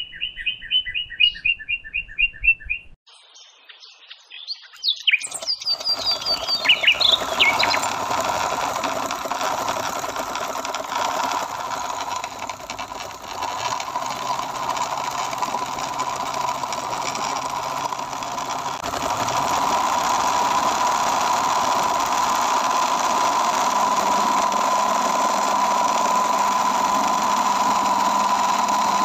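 A quick run of bird-like chirps at the start. Then, about six seconds in, a small DC motor starts and drives a miniature belt-and-pulley rice-husking machine, with a steady whirring hum and a high whine that grows a little louder about two-thirds of the way through.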